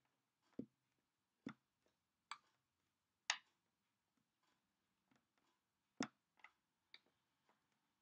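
Faint, irregularly spaced taps and clicks of fingers and metal finger rings against a wooden tabletop, about seven in all, some a dull knock on the wood and the sharpest a little past three seconds in.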